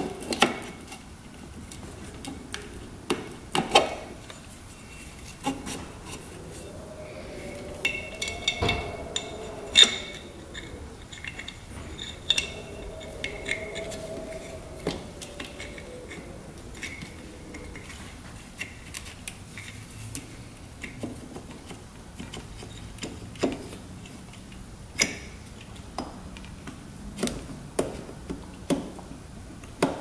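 Metal engine parts and tools being handled: many light clinks and taps, with a wavering sliding sound for several seconds in the middle, as the cylinder is worked down over the compressed piston rings of a 2001 Yamaha WR250F's single-cylinder engine.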